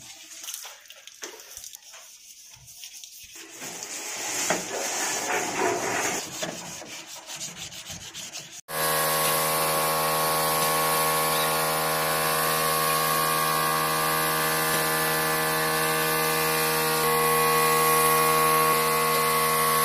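Scratchy rubbing and sanding on a car body panel for the first several seconds. Then, after an abrupt cut, the steady high hiss of a compressed-air paint spray gun, over a steady hum of several tones.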